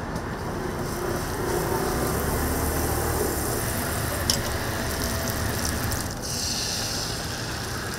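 Steady low background noise, then from about six seconds in a bright hiss of food sizzling on a hot griddle. A single sharp click a little after four seconds.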